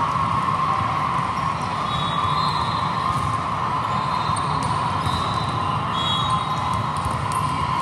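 Steady din of a big indoor hall full of volleyball play, with volleyballs being hit and bouncing and a few short high squeaks.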